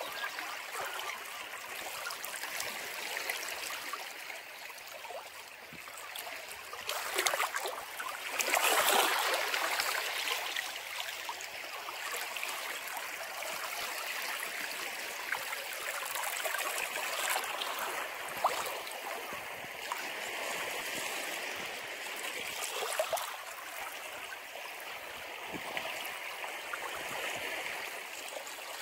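Ocean surf: a steady rush of waves washing along the shore, swelling as a wave breaks about seven to ten seconds in.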